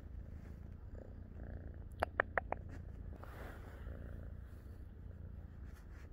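Kitten purring steadily, a low pulsing rumble. About two seconds in there is a quick run of four short, high-pitched chirps.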